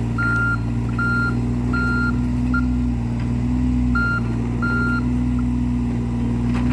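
Excavator's diesel engine running steadily, with its travel alarm beeping in a run of short beeps, pausing briefly about two and a half seconds in, then beeping again before falling silent about five seconds in while the engine keeps running.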